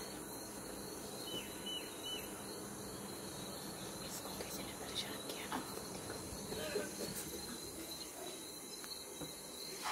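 Steady insect chorus, a high drone holding one pitch, with a few faint clicks and short chirps over it.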